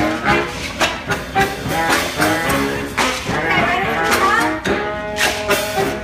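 Live street brass band playing: saxophones and horns carry sustained notes over a steady drum beat.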